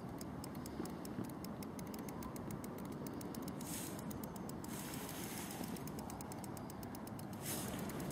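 Steady wind and water noise from a small boat on open water, with fast faint ticking through the first few seconds and a few short hissing gusts later on.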